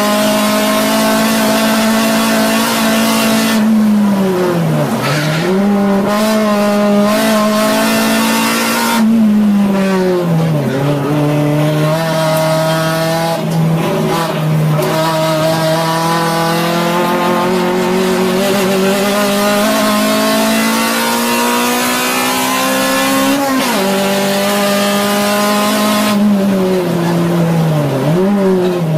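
Acura Integra Type R's 1.8-litre VTEC four-cylinder at racing pace, heard from inside the cabin. It is held at high revs, then falls through quick dips and sharp blips as it downshifts for a corner a few seconds in. It pulls up through the revs in a long, slow climb, drops at an upshift about two-thirds through, and blips through more downshifts near the end.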